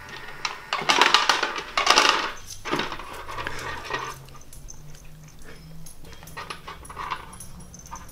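Dry dog kibble rattling and clicking in the plastic food tray of a Wopet automatic pet feeder as several dogs push in and eat from it. It is loudest in two bursts about one and two seconds in, then settles into scattered clicks.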